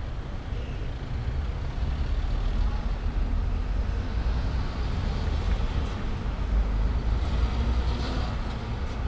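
Road traffic at a busy city intersection: cars and a lorry passing, over a steady low rumble, with a louder swell of tyre hiss near the end.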